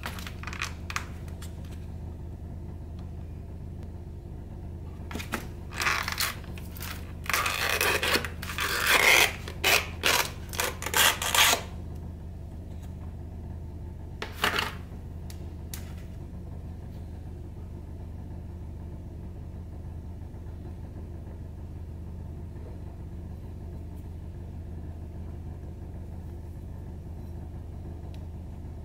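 Clear plastic lid of a takeaway curry container being pried off and handled: a run of sharp, noisy plastic clicks and scrapes about five to twelve seconds in, and one more a few seconds later, over a steady low hum.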